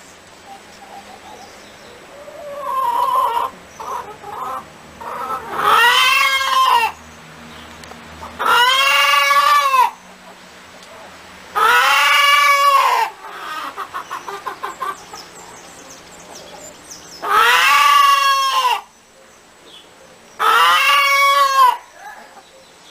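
A hen cackling: short, quick clucks broken by five long, loud, arching squawks spaced a few seconds apart.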